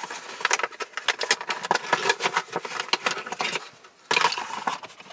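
Packaging crinkling as it is handled: dense, irregular crackles in quick succession, with a short lull about four seconds in.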